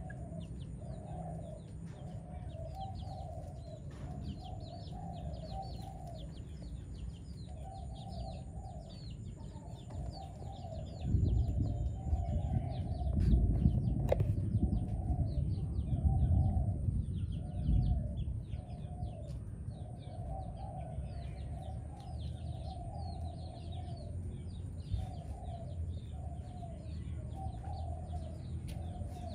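Many short, high chirps and peeps from young chickens and other birds, over rows of repeated lower calls and a steady high whine. A low rumble rises between about 11 and 18 seconds in and is the loudest sound.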